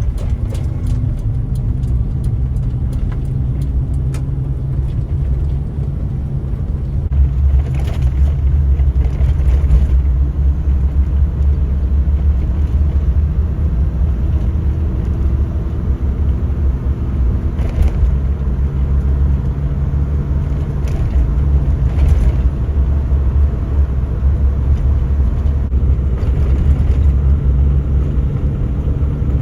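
Suzuki Jimny JA11's small three-cylinder turbo engine and road noise while driving: a steady low rumble that gets louder about a quarter of the way in.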